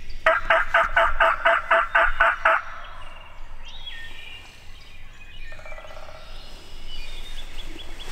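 Turkey yelping: a loud run of about eleven evenly spaced notes over two seconds, followed by faint songbird chirps.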